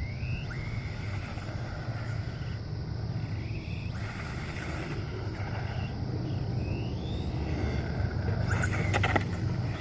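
Whine of a LaTrax Prerunner RC truck's Himax brushless motor and gears, rising in pitch several times as the truck accelerates, over a steady low rumble. A few sharp clicks near the end.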